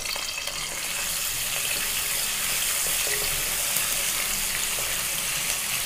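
Chopped garlic and ginger sizzling steadily in hot coconut oil in a pan.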